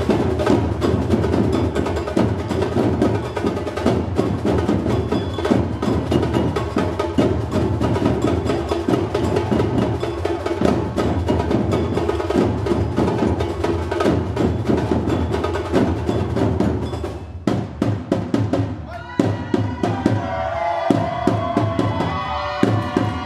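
Batucada-style drum ensemble playing a dense, steady rhythm that breaks off about three-quarters of the way through. After the break, voices come in over sparse drum strokes.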